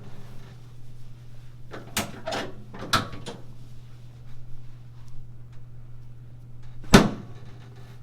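Sharp clunks of a chiropractic drop table's section snapping down under quick thrusts to the pelvis: single knocks about two and three seconds in, a few lighter knocks around them, and the loudest near the end, over a steady low hum.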